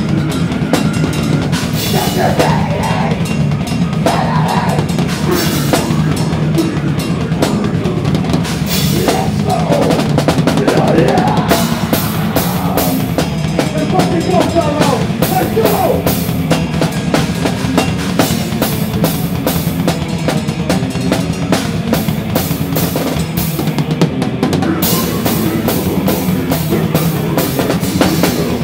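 A metal band playing live, heard from right behind the drum kit. The drums and cymbals are loudest, with fast kick drum and dense cymbal hits over distorted guitar and bass. The cymbals drop out briefly near the end, then come back in.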